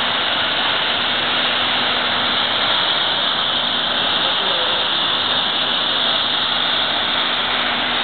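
Industrial tunnel parts washer and dryer running: a steady hiss with a steady low hum underneath.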